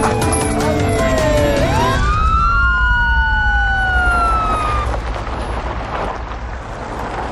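Police car siren wailing in long slow sweeps, falling, then rising and falling again, fading out about five seconds in. Dramatic music with sharp percussive hits sounds under it in the first two seconds, and a noisy low rumble is left at the end.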